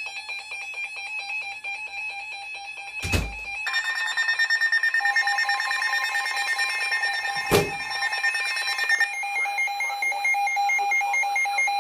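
Weather radios sounding their electronic warning alarms for a Flash Flood Warning, more than one at once. A second, higher alarm tone joins about three and a half seconds in and drops out around nine seconds in. Two sharp thumps come about three and seven and a half seconds in.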